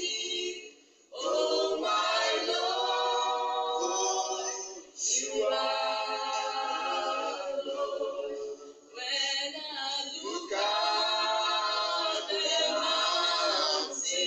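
A group of voices singing a hymn-like song together in long held phrases, with three short breaks between phrases.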